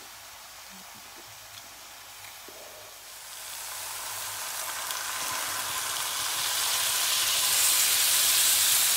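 Ale poured from a can into a hot cast iron Dutch oven of vegetables and meat, hissing and sizzling. It starts about three seconds in and grows louder towards the end.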